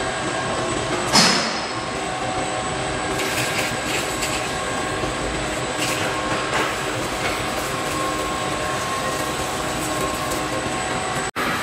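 Heavy industrial machinery running with a steady mechanical hum holding several steady tones. A single sharp metallic hit stands out about a second in. The sound drops out for a moment near the end.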